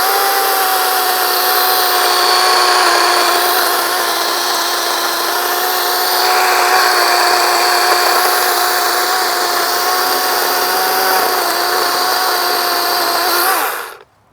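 DeWalt 20V Max XR brushless cordless chainsaw running at full speed, cutting through a fresh oak limb: a steady high electric-motor whine with chain and wood noise. It winds down and stops about fourteen seconds in.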